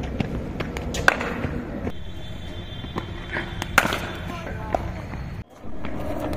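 Cricket bat striking a leather ball in practice nets: sharp knocks, the loudest about a second in and just before four seconds in.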